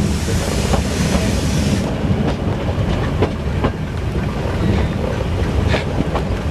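Meter-gauge train running along the track, a steady rumble with the wheels clicking over rail joints, heard from an open coach doorway.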